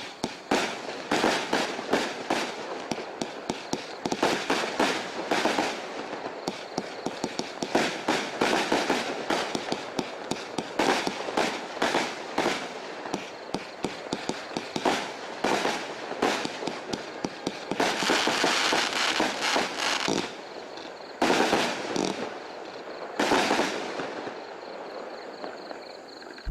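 Consumer firework going off: a fast, continuous run of shots and bangs with crackling, several a second, with longer hissing stretches late on.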